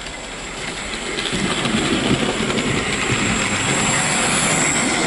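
Hornby OO gauge model of the steam locomotive 71000 Duke of Gloucester running along layout track, its motor and wheels making a steady rattling run. The sound grows louder from about a second in as the locomotive approaches and passes close by around four seconds in, running smoothly straight out of the box.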